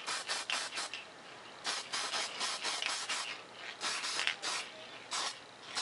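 Paint being applied to a foam RC jet airframe in quick, short strokes: a run of brief scratchy hisses in clusters, with short pauses between them.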